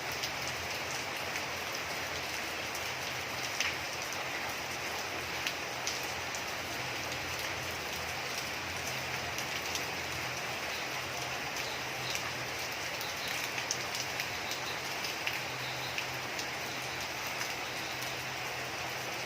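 Steady rainfall, with scattered louder raindrop hits standing out now and then.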